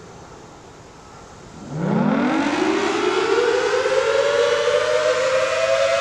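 Federal Signal Thunderbolt 1000AT outdoor warning siren starting up for a full-alert steady tone: about two seconds in it winds up with a rising wail of two close tones, still climbing at the end. The rotator is broken, so the horn stays pointed one way and the level holds steady instead of rising and falling.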